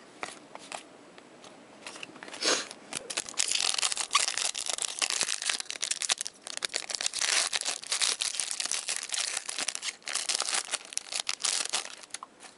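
Card pack wrapper being crinkled and torn open, a dense crackling run that starts about two and a half seconds in and carries on almost to the end, broken by short pauses.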